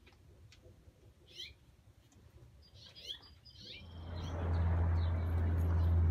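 Bird chirps, short and high-pitched, twice over a quiet background. About four seconds in, a steady low hum swells in and becomes the loudest sound.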